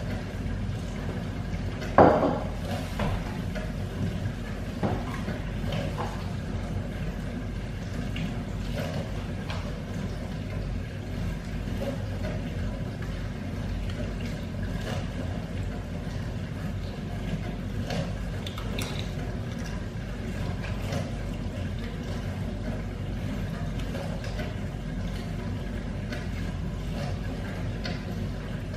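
A sharp knock about two seconds in, then occasional light clicks of a spoon against a cereal bowl over a steady low background hum.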